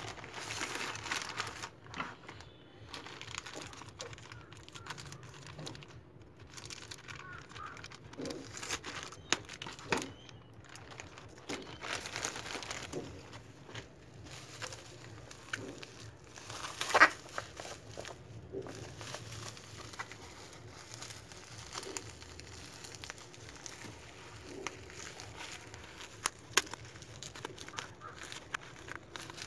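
Plastic courier mailer and bubble wrap crinkling and rustling as they are opened and handled, in irregular bursts with small crackles. One sharp crack, about two-thirds of the way through, is the loudest sound.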